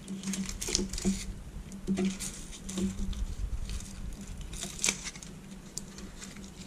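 Aluminium foil tape crinkling and rustling in irregular bursts as hands press and smooth it down on the LCD panel's metal backlight frame, with one sharper crackle near five seconds. A low steady hum runs underneath.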